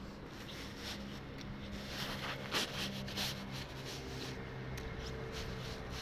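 Phone-handling noise: the phone rubbing and scraping against clothing or the hand while walking, with irregular short strokes, the loudest about halfway through. A low steady hum runs underneath.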